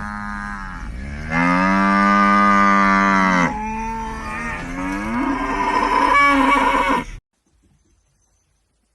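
A cow mooing: a run of long, drawn-out moos, the loudest in the second and third seconds, cut off suddenly about seven seconds in.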